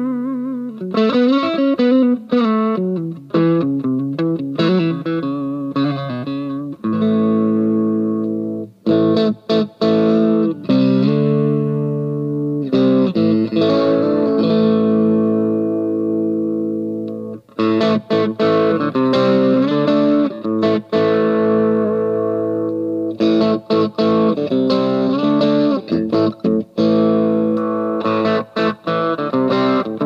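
Tokai Silver Star SS-36 electric guitar played through an amp. It starts with single notes bent and shaken with wide vibrato, then moves to strummed chords that ring out and are cut off by short muted stops.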